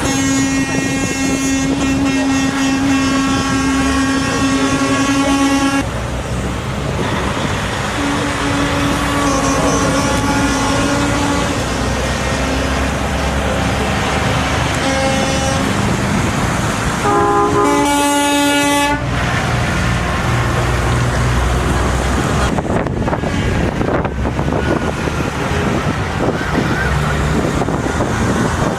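Semi-truck air horns honking as trucks in a convoy go by, over the rumble of their engines. Two long single-note blasts come first, then shorter toots, and a louder several-note chord horn sounds past the middle.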